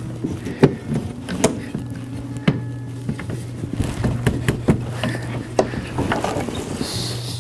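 Wooden seat supports of a Berthon collapsible boat being handled and fitted against its wooden frame: several sharp wooden knocks at irregular intervals, with rubbing and scraping between them. A steady low hum runs underneath.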